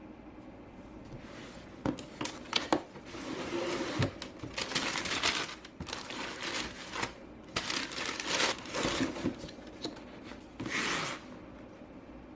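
Paper and cardboard being handled: irregular rustling and crinkling in uneven bursts, with a few light knocks, as a sneaker box and its wrapping paper are opened.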